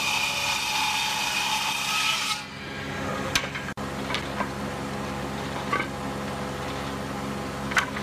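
Combination woodworking machine's circular saw cutting a wooden board: a loud whine with hissing that ends about two and a half seconds in. The machine then runs on at a lower steady hum while wooden boards are knocked together a few times as they are stacked.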